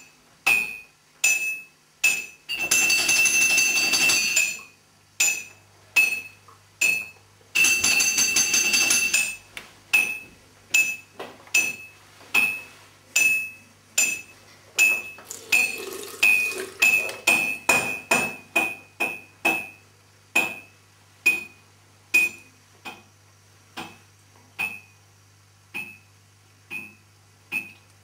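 Jingling metallic percussion: three long shaken rattles in the first nine seconds, then single sharp clinks, each with a short high ring, coming irregularly about one to two a second, bunching closer together midway, over a low steady hum.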